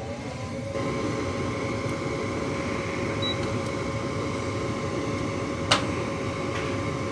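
Gas furnace draft inducer motor spinning up, its whine rising and levelling off within the first second, then running steadily. One sharp click about six seconds in.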